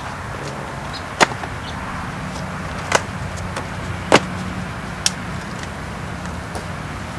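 A tape-wrapped cardboard box being cut open with a pocket knife: four sharp clicks and knocks spread over a few seconds, the first and third the loudest, over a steady low background hum.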